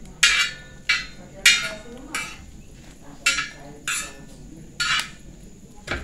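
A metal spoon scraping and clinking against a wide metal pan as food is stirred: about eight sharp strokes, one every half second to second, with a short pause a little past two seconds in.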